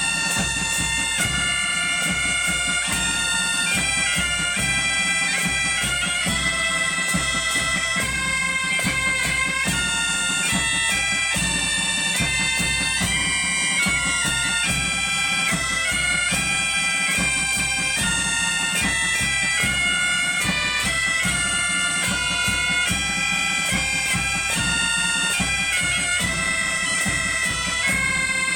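Asturian bagpipe (gaita) playing a melody of changing notes over its steady drone.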